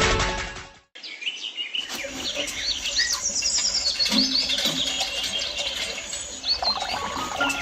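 Music fades out, and after a moment's silence a crowd of small birds chirps and twitters, with many short, high calls overlapping.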